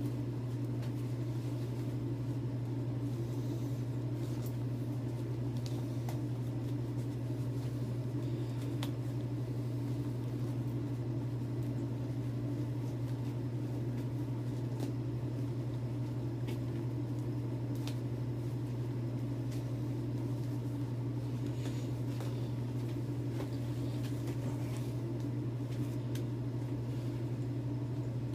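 Steady low mechanical hum that holds an even level throughout, with a few faint clicks.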